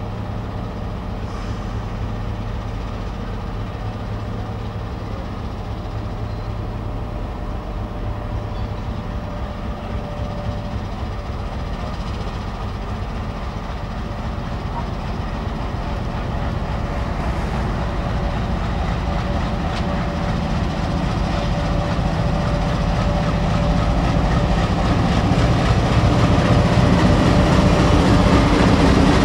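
MLW MX636 diesel-electric locomotive's ALCO 251 V16 engine running as it hauls a freight train slowly past, growing steadily louder as it approaches, with a steady whine above the low engine note.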